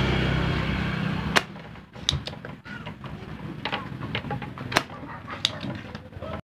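A loud steady hum with a buzz cuts off with a sharp click about a second and a half in. Scattered small clicks and taps follow, and the sound stops abruptly near the end.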